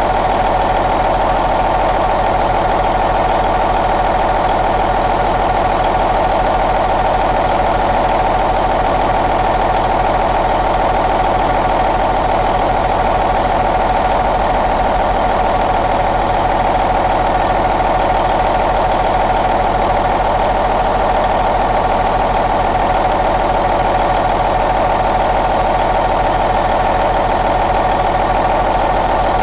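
1999 Cummins N14 CELECT Plus 14-litre inline-six diesel engine idling steadily at an even speed.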